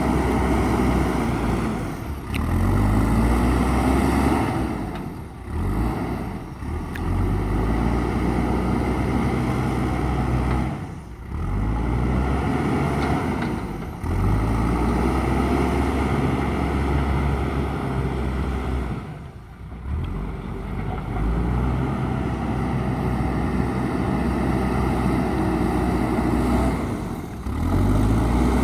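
Diesel engine of a JCB backhoe loader running as the machine works, its pitch shifting with the load, broken by several brief drops in level.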